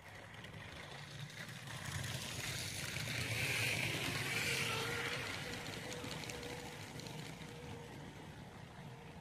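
Motorised Lego train rolling past close by on plastic track: a whirring rumble of wheels and motor that swells to its loudest about four seconds in and then slowly fades, with a faint steady whine underneath.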